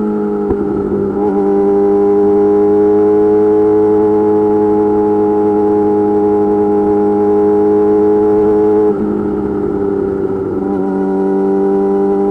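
Yamaha YZF-R6 inline-four sport bike running at steady cruising revs through an M4 GP slip-on exhaust, its note sagging slowly. Its level and pitch drop abruptly about nine seconds in, and the note picks up again near the end.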